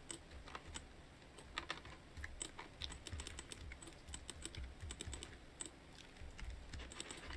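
Fairly quiet, irregular clicks of computer keyboard keys being pressed one at a time, with some low thumps underneath.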